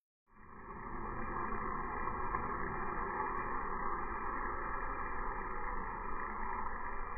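N gauge model railcar running on its track: a steady noisy whir of the small motor and wheels, coming in over the first second after a moment of silence.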